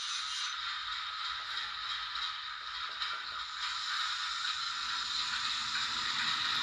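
Hornby Class 08 diesel shunter model's DCC sound decoder playing its engine sound through the loco's tiny onboard speaker: a steady, thin, hissy running sound with a few light clicks.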